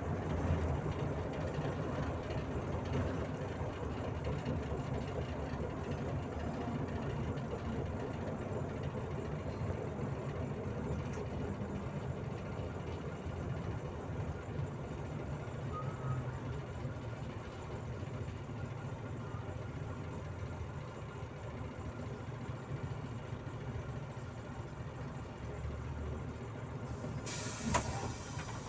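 Inside a Volzhanin-5270 city bus under way: steady engine and road rumble. Near the end a short, loud hiss of air from the brakes comes as the bus stops.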